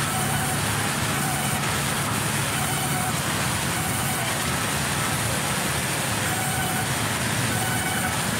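Large sawmill band saw running and cutting wooden planks as they are fed through: a steady, even mechanical noise with a low hum and a thin high whine.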